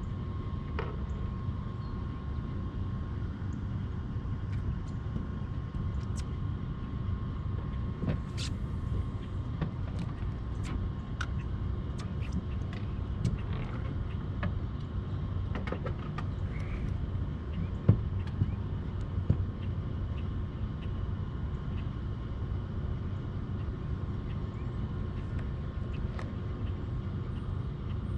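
Steady low rumble, like a motor or passing traffic, with scattered light clicks throughout and a few sharper knocks about eighteen and nineteen seconds in.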